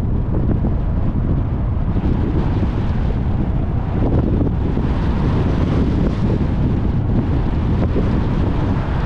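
Wind buffeting the microphone of a camera on a moving car, a steady low rumble mixed with road noise.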